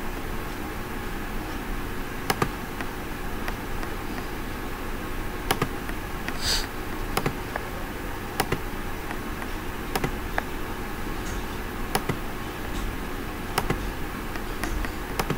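Sharp single clicks of a computer mouse, one every second or two, over a steady background hiss and hum.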